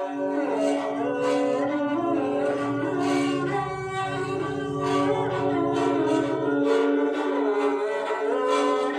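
Kamaycha, the bowed string lute of Rajasthan, being played: a melody over steady held drone tones.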